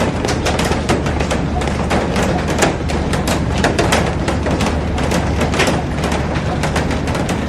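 Heavy rain falling on a glass roof and garden: a steady, dense patter with many sharp individual drop impacts on the glass.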